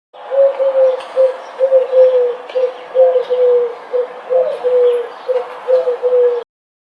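A bird calling in a run of about a dozen short, low cooing notes, some in quick pairs, each falling slightly in pitch, over a faint hiss; the clip cuts off abruptly near the end.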